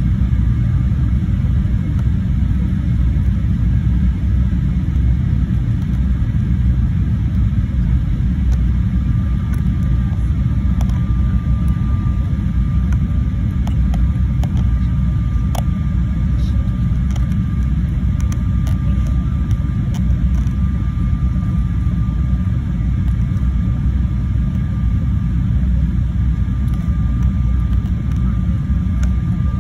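Airliner cabin noise heard from a window seat on the approach to landing: the steady low rumble of the jet engines and rushing air. A faint steady high whine runs through much of it, and there is one brief click about halfway.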